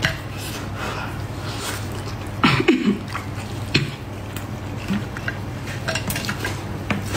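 Close-miked eating of braised pork knuckle: sticky, glazed meat pulled apart by gloved hands and chewed, with scattered small wet clicks and squishes. A louder wet mouth sound comes about two and a half seconds in.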